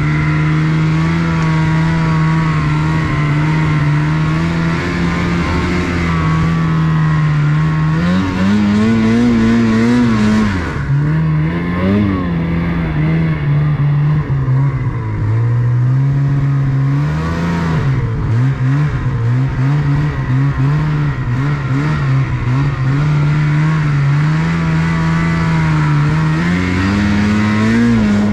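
Ski-Doo 850 Summit snowmobile's two-stroke twin engine running hard under load in deep powder, a steady drone whose revs swell up and fall back several times with the throttle.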